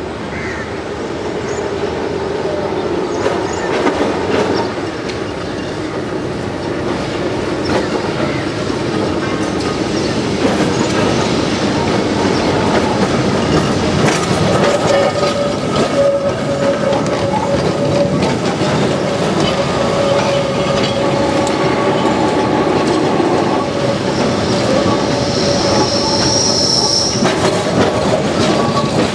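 Kolkata tram cars rolling slowly past, steel wheels clicking over the track and rumbling. The sound grows louder over the first ten seconds, and near the end there is a high, thin wheel squeal.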